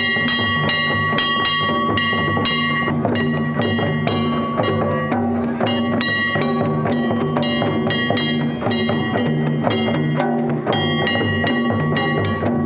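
Loud dance music with a steady, regular drumbeat and ringing metallic, bell-like tones that repeat in phrases.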